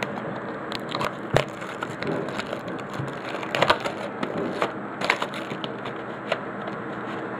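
Plastic packaging of a CD-RW pack being handled and pried open: irregular crinkling with sharp snaps and cracks every second or so.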